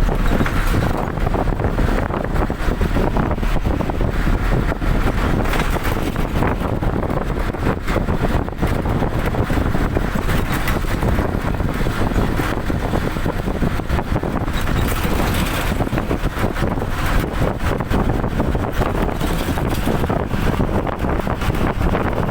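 Steady rushing noise of a moving vehicle, with wind on the microphone.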